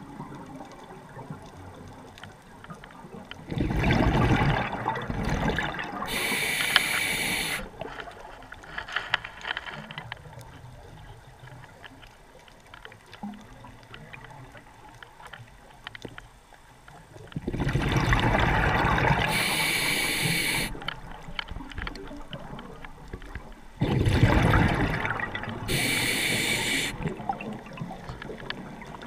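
Scuba diver breathing through a regulator underwater: three breaths, each a rumble of exhaled bubbles followed by the hiss of an inhale through the demand valve, with a quieter steady underwater background between them.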